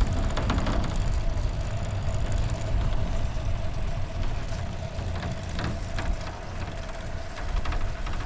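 The loose lower edge of a recumbent trike's windshield knocking and rattling against its mount while riding, over steady wind and road rumble; the bottom of the windshield is not yet damped.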